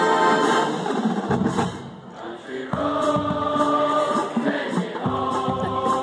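A large college marching band sounding slow, held chords in full harmony. A fresh chord starts abruptly about halfway through and again near the end.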